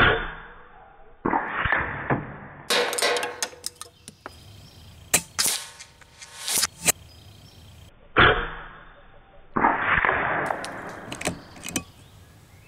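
A string of sharp shots from a .22 Kalibrgun Cricket 2 Tactical PCP air rifle, about half a dozen, with smaller clicks and knocks between them.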